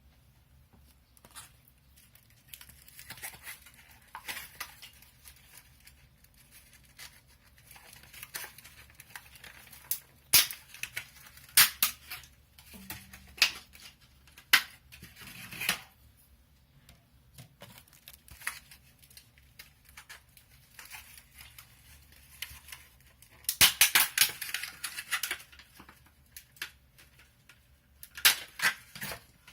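Sharp metal clicks, knocks and scraping from hands working on the opened QNAP NAS's chassis and parts, in scattered strokes with a dense burst of scraping and rattling about two thirds of the way through and another near the end.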